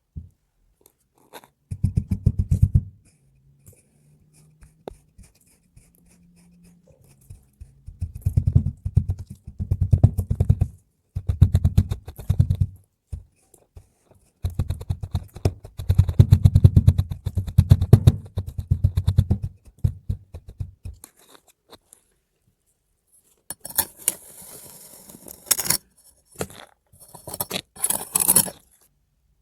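Kinetic sand being squished and crumbled, in several spells of dense, crunchy crackling. Near the end comes a brighter, hissier scraping sound.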